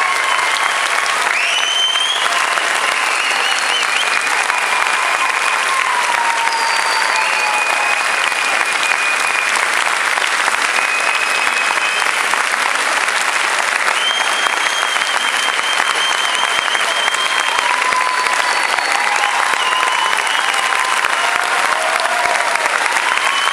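Large theatre audience giving a standing ovation: dense, steady clapping, with voices calling out over it.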